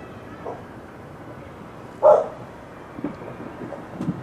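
A dog barks once, sharply, about two seconds in, the loudest sound here. A few faint low thuds come before and after it.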